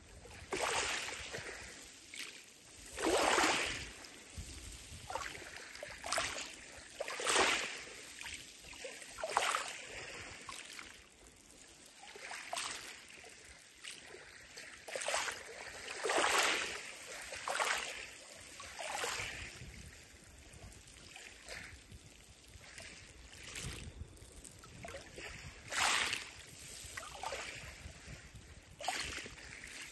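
Small ripples of shallow water lapping over a pebble bed, an irregular hissing wash every second or two.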